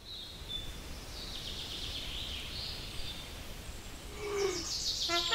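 Outdoor ambience with birds chirping high and a low steady rumble. Near the end a small brass bugle starts playing.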